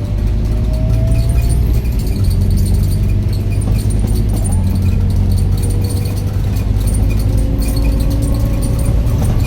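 A bus engine and drivetrain heard from inside while driving: a steady low drone with a faint whine that rises slowly in pitch twice, and light rattling from the bus's fittings.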